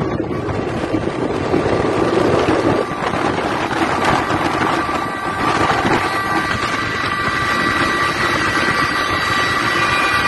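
Motorway traffic noise and wind buffeting the microphone from a car window, with a few faint steady tones running through the second half.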